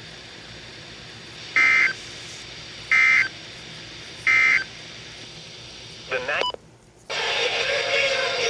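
Emergency Alert System data tones: three short, identical bursts of the warbling SAME digital code about 1.4 seconds apart, the end-of-message signal that closes the weather alert. Near the end, after a brief cut, radio music comes in.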